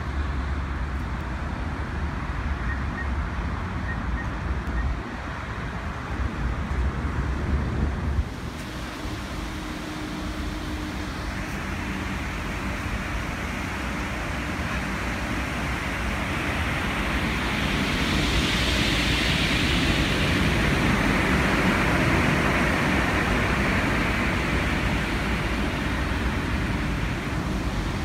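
Road traffic noise with wind buffeting the microphone, and a vehicle passing that swells louder in the second half.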